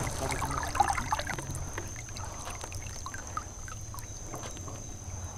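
Water splashing and sloshing against the side of an aluminium boat as a peacock bass held in the river is let go and kicks away, loudest in the first second or so, then settling into small trickles and drips.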